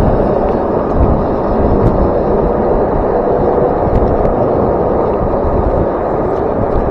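Wind buffeting the microphone: loud, steady low-pitched noise.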